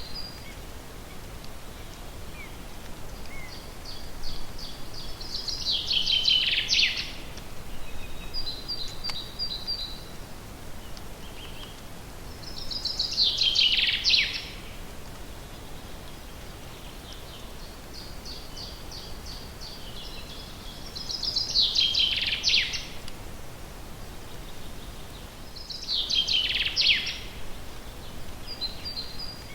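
A songbird singing the same song four times, roughly every seven to eight seconds: a series of quick repeated high notes that ends in a louder, falling flourish. Softer short runs of chirps come between the songs, over a steady background hiss.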